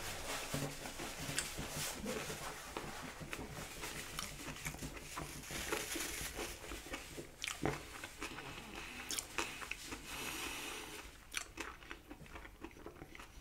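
Close-up chewing of crispy fried potato fries: a person biting and crunching, with many small crackles and a few sharper crunches.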